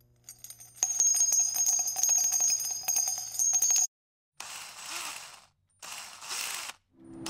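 Bright, metallic bell jingling with rapid repeated strikes, lasting about three seconds and cutting off sharply. It is followed by two short hissing whooshes.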